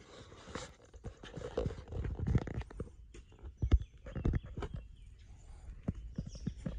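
Irregular footsteps and knocks from a hand-held phone being moved about, over a low uneven rumble like wind on the microphone.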